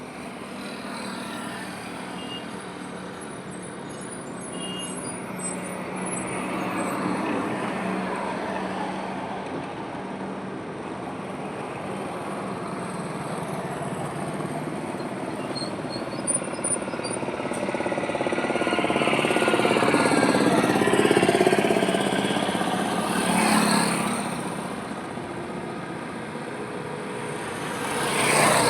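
Highway traffic: a steady rush of tyres and engines as vehicles pass one after another. The traffic swells loudest about two-thirds of the way through, and two quicker vehicles pass near the end.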